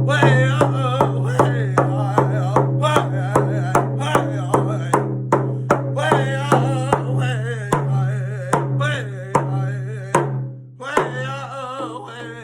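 Indigenous song sung over a steady drum beat, about two to three strikes a second, the voice wavering over the drum's low ring. The song winds down and fades near the end.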